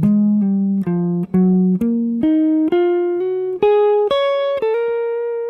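Semi-hollow electric guitar playing a single-note lick: about eleven picked notes climbing in pitch at roughly two a second, ending on a long held note near the end.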